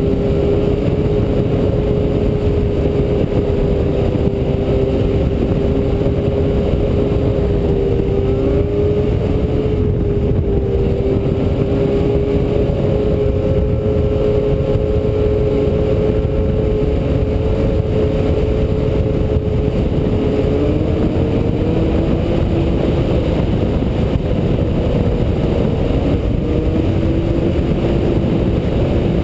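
Yamaha snowmobile engine running steadily at cruising speed, over a steady low rushing noise. Its tone holds nearly level, with a brief dip and shift about two-thirds of the way through.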